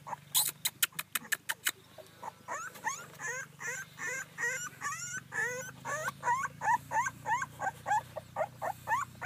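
Puppies about seventeen days old whimpering and squeaking in a continuous run of short rising cries, several a second. The run is preceded by a quick series of about eight sharp clicks about half a second in.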